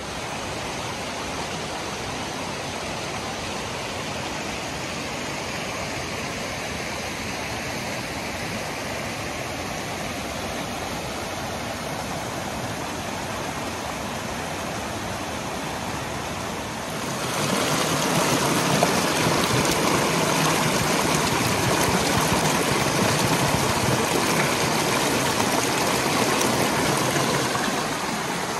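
Mountain creek rushing and splashing over rocks in small cascades. The rushing gets louder about two-thirds of the way through.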